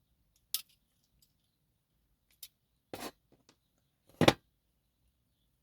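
Small metal tools and a dimple lock cylinder being handled in the hands: a few sharp clicks and short scrapes, the loudest a little after four seconds in.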